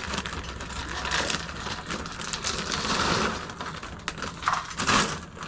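Irregular clicks, knocks and rustling, as of small objects being handled and knocked about.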